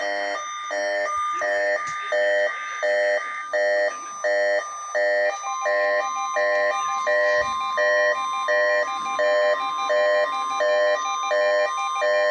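NOAA Weather Radio receiver alarm sounding rapid pulsed beeps, about two a second. About five seconds in, the steady 1050 Hz NWR warning alarm tone of the weekly test joins under the beeps.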